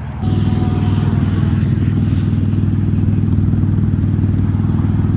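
Car engine running at steady revs, a loud, even drone that begins abruptly a moment in.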